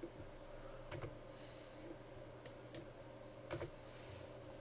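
A few faint computer mouse clicks, a close pair of them about three and a half seconds in, over a low steady hum.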